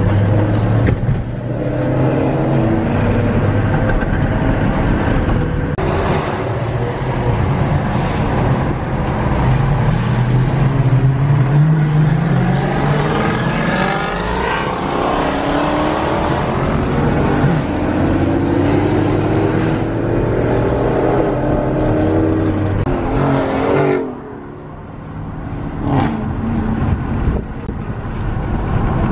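Loud car engines running and revving, with the pitch climbing as one accelerates partway through. The noise drops away suddenly about 24 seconds in, then a short rev comes near 26 seconds.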